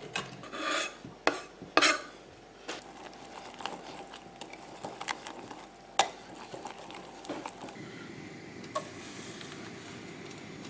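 A knife knocking on a wooden cutting board as herbs are chopped, several sharp knocks in the first two seconds. Then egg batter is stirred in a glass jug, with scraping and occasional clinks against the glass.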